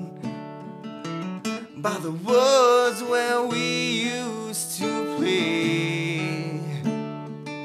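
Live solo acoustic guitar strummed steadily, with a man's voice singing over it in places.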